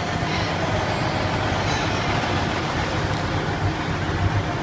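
Semi-truck tractor's diesel engine running as it rolls slowly past, a steady low rumble.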